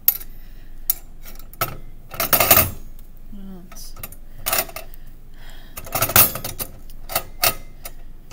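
Sharp metal clicks and knocks from the riders of an Ohaus triple beam balance being slid along its notched beams, coming irregularly, with louder clusters about two seconds in and around six seconds.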